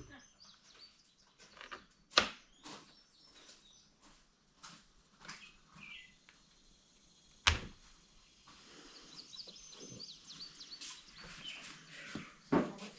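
Scattered clicks and knocks of hand tools and parts being handled while a string trimmer is worked on, with two sharper knocks about two seconds in and about seven and a half seconds in. Birds chirp in the background.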